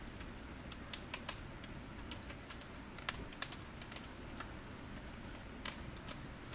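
Firewood burning in a fire, crackling with irregular sharp pops and snaps over a steady low hiss.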